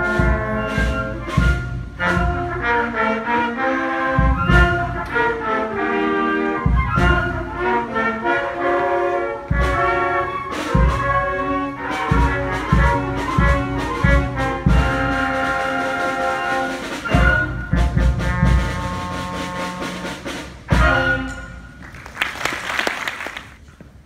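School concert band playing a piece, with brass, saxophones and woodwinds over regular drum hits. Near the end there is a brief noisy wash, and the sound drops away.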